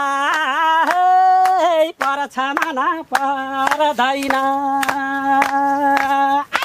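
A voice singing a short melody of long held notes with a slight waver, over sharp hand claps, stopping just before the end.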